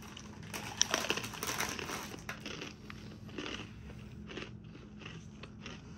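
Crunchy chewing of a large, hard Flamin' Hot Cheetos pretzel, a dense run of crunches about a second in, then fainter, scattered crackles.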